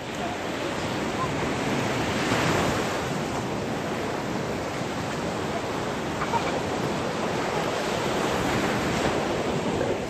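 Sea surf washing up the beach: small waves breaking and rushing over the sand in a steady wash, swelling a little about two seconds in.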